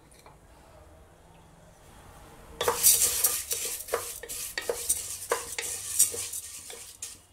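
Washed green gram (moong beans) dry-roasting in an aluminium pressure cooker and stirred with a wooden spatula. From about two and a half seconds in, the beans sizzle and rattle, with repeated scrapes and clicks of the spatula against the pot. This is the light roasting that changes the beans' colour.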